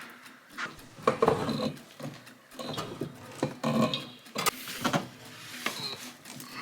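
Irregular metallic clinks and knocks of hand tools against gas-bottle fittings as they are worked loose, a few strikes ringing briefly.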